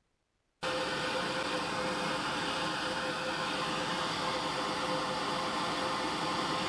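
Workshop machinery running steadily: an even rushing noise with a steady hum, cutting in abruptly about half a second in.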